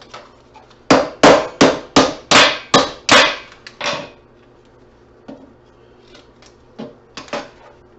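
Hammer blows on a scrapped computer part: about nine sharp strikes in quick succession, roughly three a second, then a few lighter knocks near the end, as the part is beaten apart for its metal.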